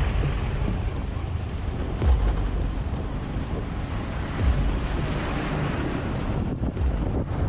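Wind buffeting the microphone over a steady low rumble of vehicle noise, with low thumps of wind about every two seconds.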